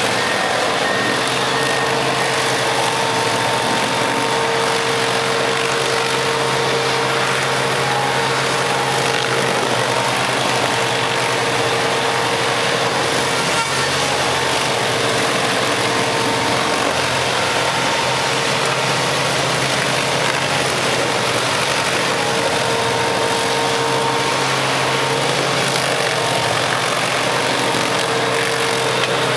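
Stump grinder's engine running at a steady, unchanging pitch and level.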